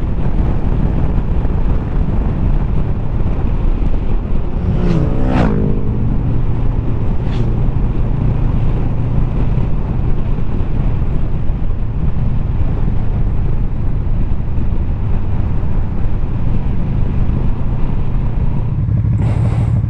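Honda VFR800F's V4 engine running steadily while the motorcycle is ridden along the road. About five seconds in, the engine note climbs briefly.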